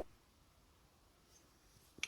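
Near silence, with a faint click near the end.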